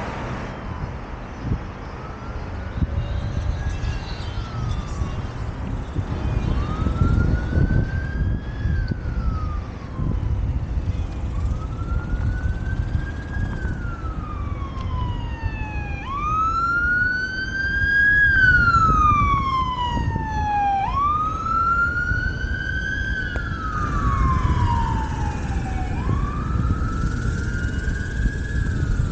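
An emergency vehicle's siren is wailing, rising and falling in pitch about every five seconds. It grows louder toward the middle and fades near the end, as if the vehicle passes and moves away. Wind rumbles on the microphone underneath, from riding.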